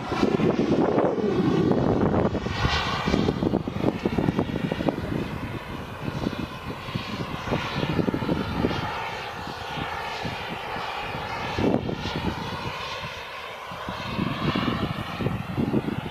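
Turbine engine of a Turbinator RC sport jet whining as the model flies past. The sound swells and fades, loudest at the start with further swells later.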